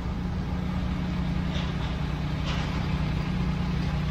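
A vehicle engine idling, a steady low hum that does not change.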